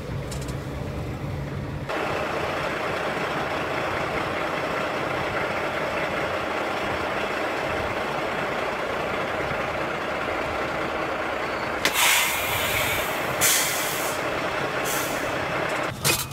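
A semi tractor's diesel engine running steadily as the truck backs up to a loading dock, with two sharp hisses of air from the air brakes near the end.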